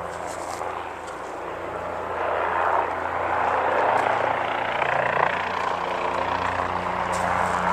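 A steady engine drone with a rushing noise over it that grows louder about two seconds in.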